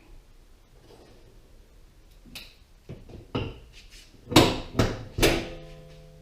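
A series of sharp knocks and clanks, the three loudest coming quickly one after another just past the middle. The last leaves a steady metallic ring.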